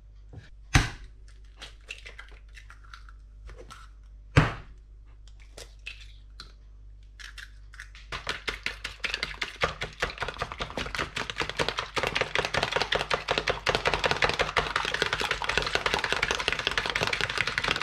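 A few light clicks and two sharp knocks, then from about eight seconds in a fork beating egg in a plastic tub, a fast, steady clatter of ticks.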